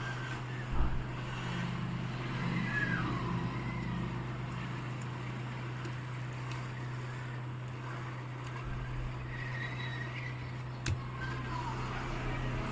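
Hot air blower running steadily with a constant low hum while it heats a phone's back glass to soften the adhesive. A sharp click comes about a second in and another near the end.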